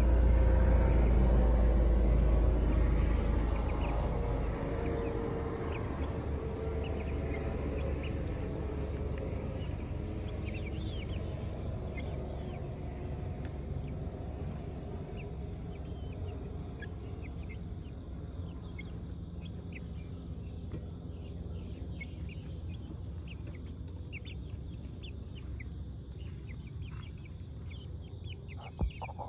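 A steady high-pitched insect drone, with young chickens peeping in short high notes, mostly in the second half. A low rumble fades away over the first few seconds, and there is a single knock near the end.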